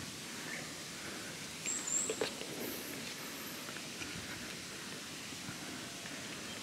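Footsteps on a paved woodland path amid quiet outdoor ambience, with a short high chirp and a couple of clicks about two seconds in.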